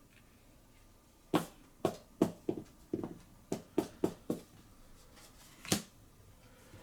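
Trading cards and deck handled by hand on a tabletop: about ten short sharp taps and clicks at irregular intervals, starting about a second and a half in and ending near six seconds.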